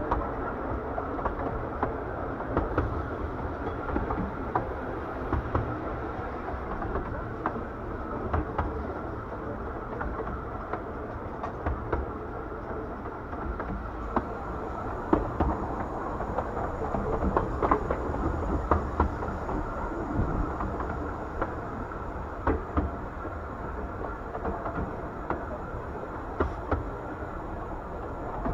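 Train on the 15-inch-gauge Bure Valley Railway, heard from a carriage while it runs along: a steady rumble of wheels on rail, with scattered irregular clacks and knocks over the track.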